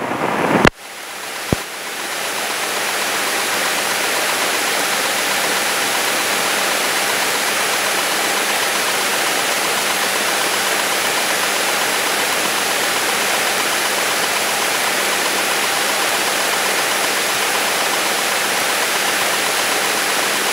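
Light aircraft's engine and propeller at takeoff power, heard on cockpit audio as a dense, even rush that builds over the first couple of seconds and then holds steady. A click or two comes about a second in, before the noise builds.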